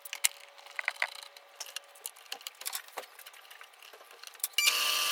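Light clicks and taps of parts being handled, then near the end a power drill starts up and runs steadily, boring a 1.3-inch hole into a thick plastic cutting board.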